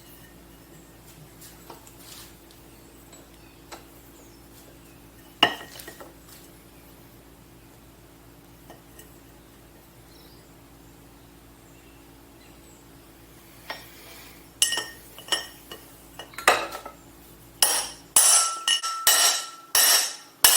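Metal tools and parts of a jet ski pump clinking and knocking against each other: an occasional single click, then a quick run of sharp metallic strikes over the last several seconds, one leaving a short ring. A faint steady hum sits underneath.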